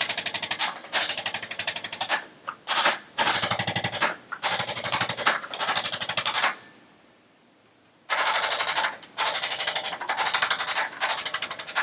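Handheld percussion massager hammering rapidly against the back muscles in about a dozen short bursts, with a break of about a second and a half midway.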